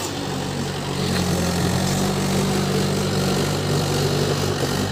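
Mahindra 575 tractor's four-cylinder diesel engine running steadily while hauling a trolley loaded with soil, getting a little louder about a second in.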